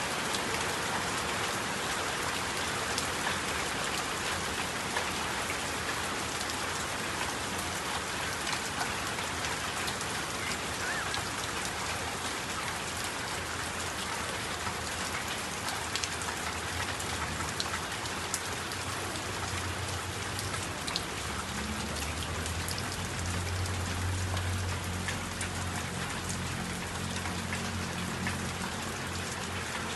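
Steady rain falling, an even hiss with scattered drop ticks. A low hum comes in about twenty seconds in and fades before the end.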